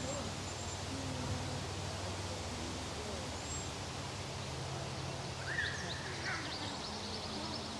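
Outdoor ambience: a steady low background noise with faint distant voices, a few tiny high chirps, and a songbird's short song about five and a half seconds in that ends in a quick trill.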